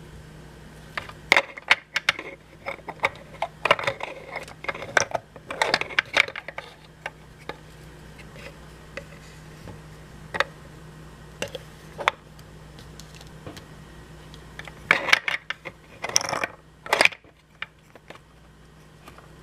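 Small hard plastic toy pieces clicking and clattering as they are handled and set down, in two busy flurries with a few single clicks between.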